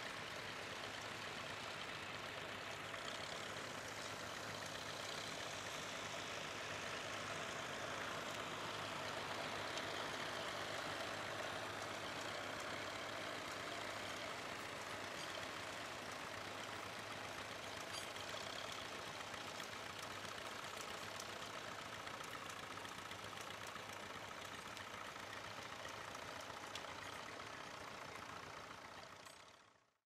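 Vintage tractor engine running steadily as it pulls a plough through stubble, a low, even engine note under the general field noise. The sound fades out near the end.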